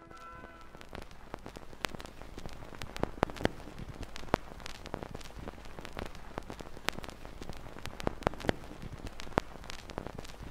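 Crackling noise: irregular sharp clicks and crackles over a steady low hum and hiss, like the surface noise of an old recording. The last of a held brass chord dies away in the first second.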